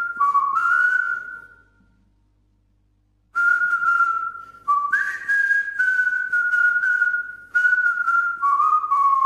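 A person whistling a short tune: a clear, stepping melody in two phrases, with a pause of about a second and a half after the first, the second phrase sliding down and fading at the end.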